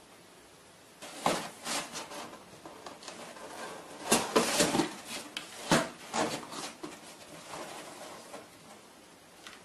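Cardboard box with cardboard divider partitions rustling, scraping and knocking as a cat climbs about inside it. The irregular knocks and scrapes start about a second in and are loudest around the middle.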